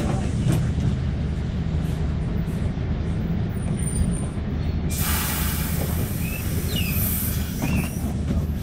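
City bus heard from inside, its engine running with a steady low rumble. About five seconds in, a loud hiss of compressed air starts suddenly and lasts about two seconds.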